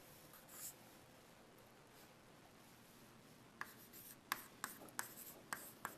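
Chalk writing on a blackboard: after near silence, a quick run of sharp chalk taps and short strokes starts about three and a half seconds in.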